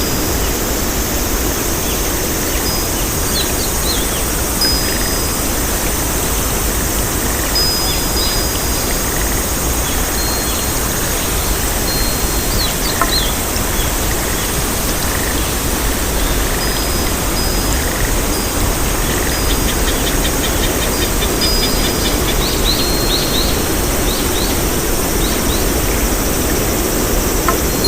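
Outdoor nature ambience: a steady rushing hiss, with short high bird chirps and whistles scattered over it and a quick trill about two-thirds of the way through.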